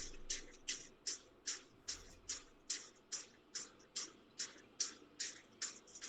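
A faint, steady rhythm of short, sharp hissy beats, about two and a half a second.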